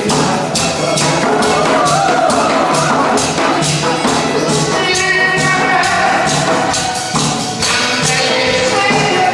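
Upbeat dance music with a Korean barrel drum beaten with a stick on a steady beat.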